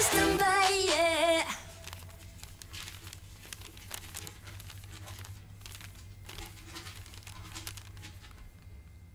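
A folded sheet of yellow paper crinkling and crackling softly as it is unfolded by hand. A sung song ends about a second and a half in.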